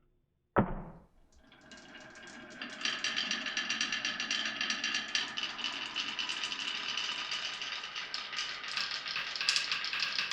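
A single sharp thump about half a second in, then glass marbles rolling and clattering down wooden marble-run tracks: a dense stream of rapid clicks that builds over a couple of seconds and keeps going, with steady ringing tones under the clatter.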